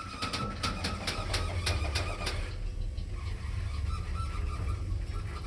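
New ELM elevator squeaking as it runs: a high, thin squeal that comes and goes over a steady low rumble. A quick run of ticks, about four a second, is heard during roughly the first two seconds.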